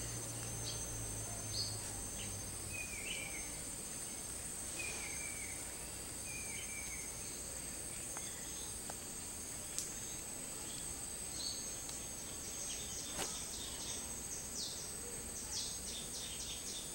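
Tropical forest ambience: a steady high-pitched insect drone throughout, with short bird chirps, three in the first half and a quick run of higher chirps near the end.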